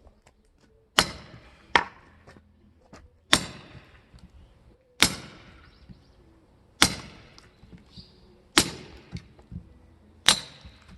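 Firewood being split: six sharp chopping strikes at an even pace, about one every 1.7 seconds, some followed by a lighter knock.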